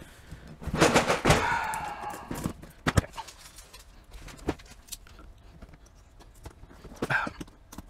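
Large cardboard box being handled and turned around on a workbench mat: a scraping, sliding rustle about a second in, then a few sharp knocks and taps, with another short scrape near the end.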